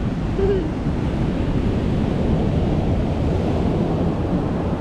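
Ocean surf washing up the beach, with wind rumbling on the microphone.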